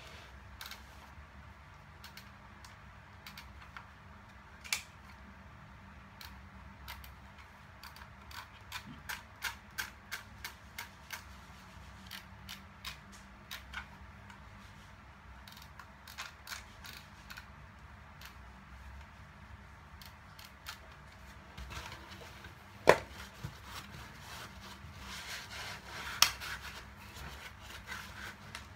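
Small plastic clicks and rattles from an airsoft rifle magazine being turned over and worked in the hands, irregular and most frequent around the middle, with two sharp knocks about two-thirds of the way through.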